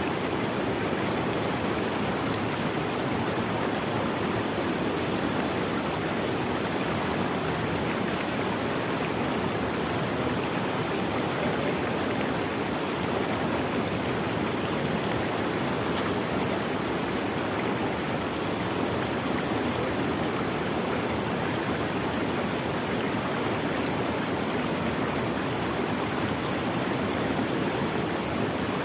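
Running water of a stream: a steady, even rush of flowing water, strongest in its lower, fuller range, unchanging throughout.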